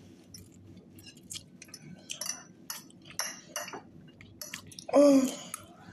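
Cutlery clinking and tapping against plates and bowls during eating, a run of light irregular clicks. A short, louder vocal sound comes about five seconds in.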